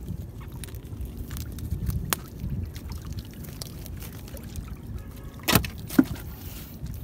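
Wet gillnet being hauled by hand over the side of a small boat, with water trickling and dripping off the mesh over a low rumble. A few sharp knocks on the hull, the loudest two close together about five and a half seconds in.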